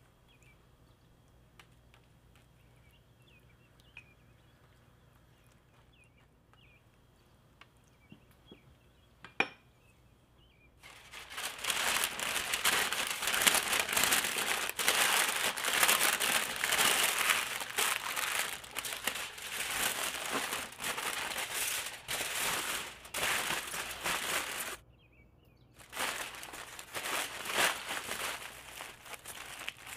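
Parchment paper and then aluminium foil crinkling loudly as they are folded and pressed around a leg of lamb. The crinkling starts about eleven seconds in after a quiet stretch and breaks off for about a second near the end.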